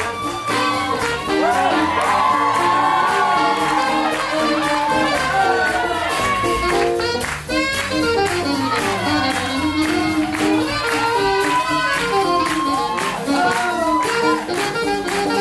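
Live swing jazz from a small band, with horns and reeds playing over a steady beat.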